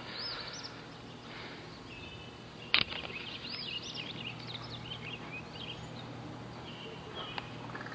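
Birds chirping in short, repeated calls over a steady low background noise, with one sharp click a little under three seconds in.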